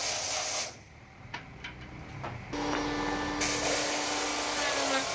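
Electric hand planer shaving a wooden board: a loud hiss of cutting that stops under a second in, a quieter stretch with a few knocks, then the planer comes back in about halfway with a steady motor hum under the cutting hiss.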